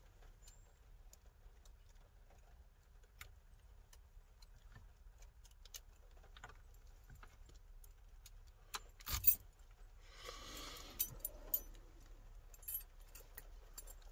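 A key ring jangling and clicking as the ignition key of a 1979 Chrysler New Yorker is worked in the steering-column lock, with scattered sharp clicks, the loudest about nine seconds in, and a brief rustling scrape just after. No starter or engine follows: the car will not start.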